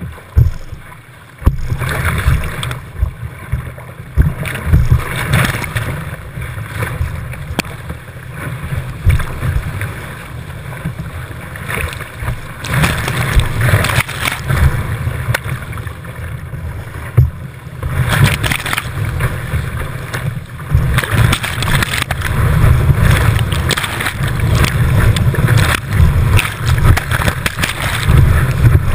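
Whitewater rushing and splashing over a kayak's deck and the camera mounted on it. A heavy low rumble surges and eases throughout, under a steady hiss of spray.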